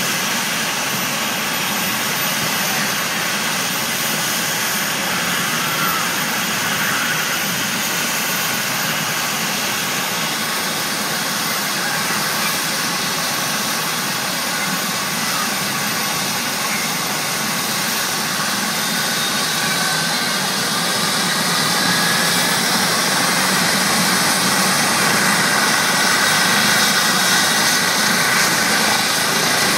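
Eurocopter EC135 T2+ helicopter running on the ground, its twin turbine engines giving a steady whine over a broad rushing noise. It grows somewhat louder after about twenty seconds.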